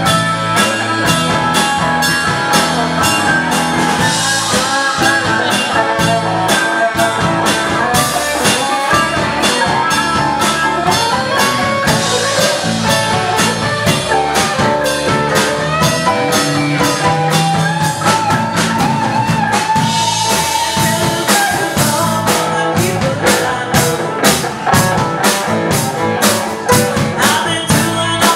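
Live rock band playing in a bar: electric guitar and electric bass over a drum kit keeping a steady beat.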